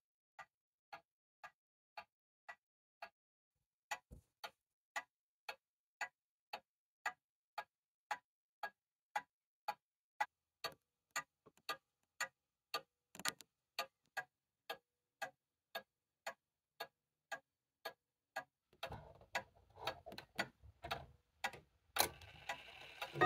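1940s Kienzle box regulator wall clock ticking steadily, about two ticks a second. Near the end some handling noise comes in, along with one louder click.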